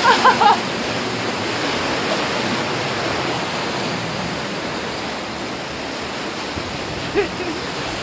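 Whitewater rushing through a river rapids ride's channel: a steady, even rush of churning water. A brief voice cuts in at the very start, and again briefly about seven seconds in.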